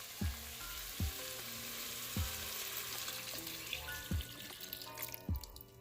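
Chicken and peppers sizzling in a rice cooker pot as milk goes in. The sizzle dies away near the end, under background music with a soft beat about once a second.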